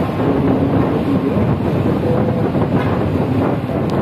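Tour bus driving on a wet road, heard from inside the cabin: a steady rumble of engine and tyres with a low droning hum that wavers slightly in pitch.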